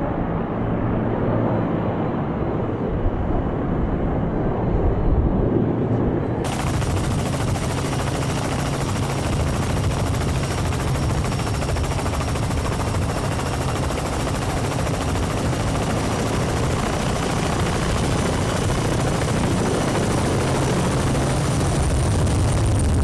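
Helicopter rotors and turbine engines running steadily in flight. About six and a half seconds in, the sound changes abruptly to a brighter, hissier noise.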